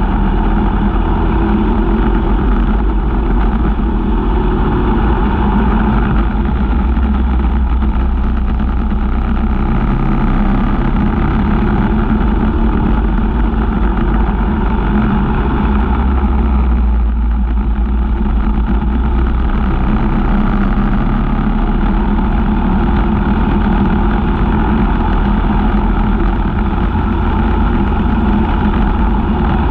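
Briggs & Stratton LO206 single-cylinder four-stroke kart engine running hard at racing speed, heard onboard as a steady loud drone that eases briefly a couple of times, around ten and seventeen seconds in.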